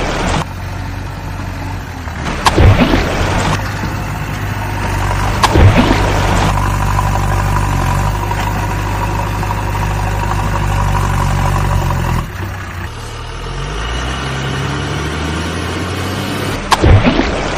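A vehicle engine runs steadily, then its pitch shifts and rises after about twelve seconds, as in revving. Sudden loud rushes of noise cut in about two and a half seconds in, again at five and a half seconds, and near the end.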